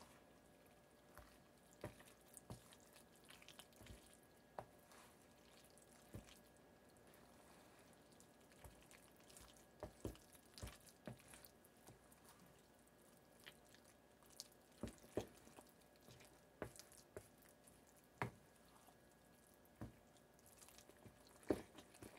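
Faint wet squelches and taps of a spatula folding cooked elbow macaroni into thick cheese sauce in a mixing bowl, coming at irregular intervals over a low steady hum.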